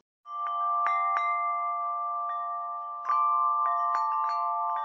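Chime music: several sustained bell-like tones ringing together, with fresh strikes now and then, louder from a little past three seconds in.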